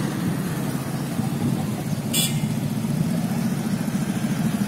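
Motorcycle traffic on a street: small engines running in a steady, pulsing low drone. A short hiss comes about two seconds in.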